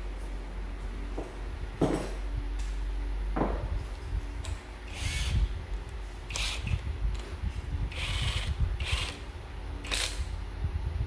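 Tools being handled at a workbench: a string of short clicks, clunks and scrapes, one every second or two, over a steady low hum.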